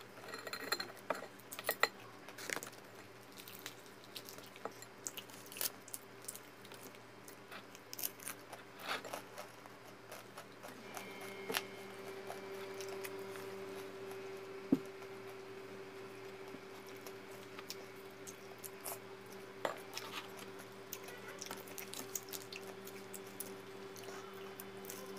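Eating by hand: scattered small clicks and taps of gloved fingers working fried chicken and rice in a ceramic bowl, and chewing. A steady hum comes in about halfway through.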